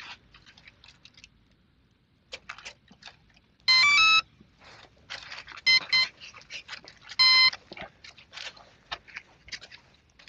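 Electronic speed controller of a small brushless motor beeping its power-up tune through the motor: a quick rising run of tones, then two short beeps, then one longer beep, the controller's start-up and arming signal. Faint handling rustles and clicks between the beeps.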